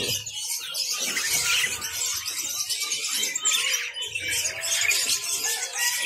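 Many small caged songbirds chirping and twittering at once, a dense, unbroken chorus of quick high notes.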